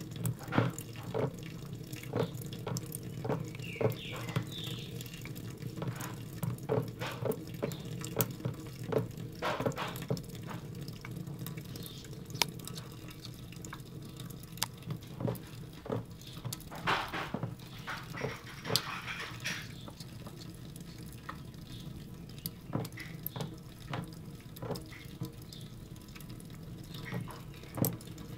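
Kitten lapping water: irregular wet clicks and drips, a few each second, over a steady low hum.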